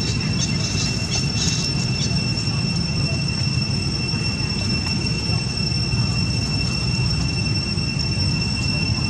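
Steady background noise: a low rumble with a constant high-pitched whine over it, and a few faint clicks in the first two seconds.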